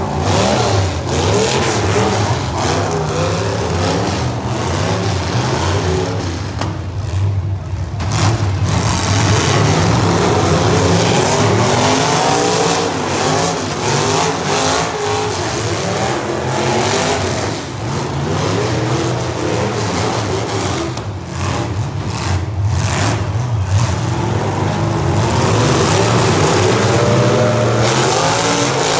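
Several modified demolition-derby cars' engines revving hard at once, pitches rising and falling as the cars accelerate and back up, with scattered sharp bangs of car bodies colliding.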